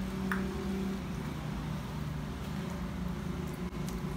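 A steady low machine hum in the room, like a running motor, with a faint click about a third of a second in.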